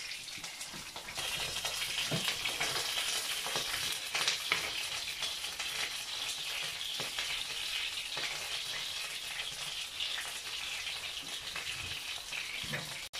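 Fish frying in a little oil in a frying pan: a steady sizzle with a light crackle, and a few faint taps.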